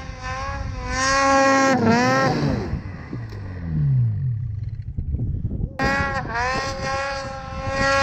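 Two-stroke snowmobile engines revving hard in deep powder. A high, steady engine note holds, then winds down about two seconds in, and a lower note glides past. Near six seconds a sled opens up again to a high held pitch that starts to fall away at the very end.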